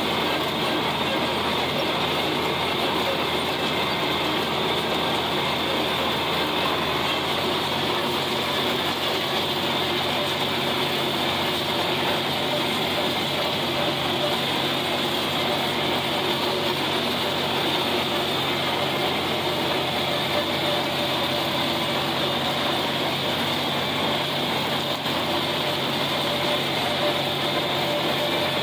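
John Deere 4020 tractor's six-cylinder engine running steadily under load, heard from the operator's seat, as it pulls a John Deere 1408 rotary cutter (brush hog) through the field.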